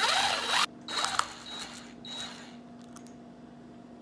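Screws being backed out of a door latch's faceplate: a loud rasping burst of metal-on-metal grinding for about half a second, a shorter one about a second in, then a few fainter scrapes.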